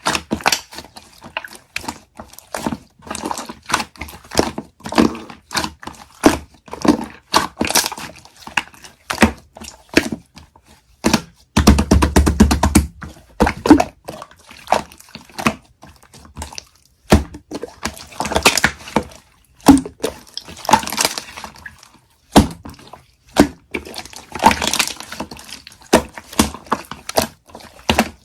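Marbling slime being squished and pressed by hand, making a continual string of quick wet clicks and pops, with a denser, heavier squelching stretch about twelve seconds in.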